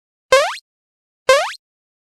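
Cartoon sound effect: two short, identical bloops, each rising quickly in pitch, about a second apart.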